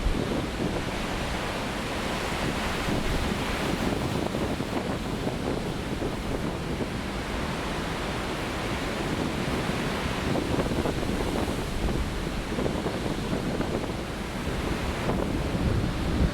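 Heavy winter storm surf breaking and rushing without a break, swelling and easing as the waves come in, with wind buffeting the microphone.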